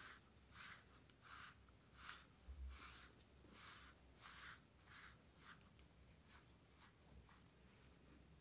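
Grooming brush drawn through a cat's fur in repeated strokes: a soft, scratchy swish about every two-thirds of a second, turning fainter and shorter in the last few seconds.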